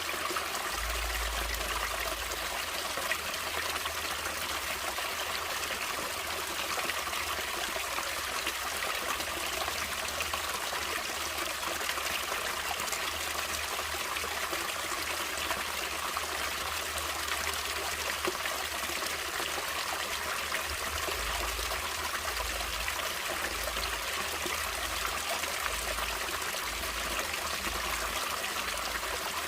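Natural running water of a stream, flowing and trickling steadily.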